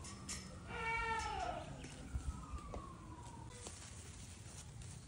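Goat kid bleating once, about a second in, a single wavering call. A faint long tone slowly rises and falls behind it.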